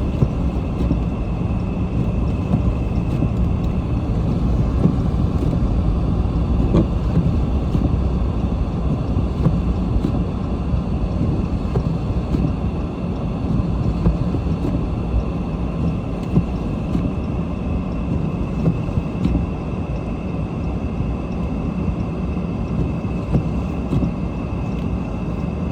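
Car driving on a snow-covered road, heard from inside the cabin: a steady low rumble of tyres and engine.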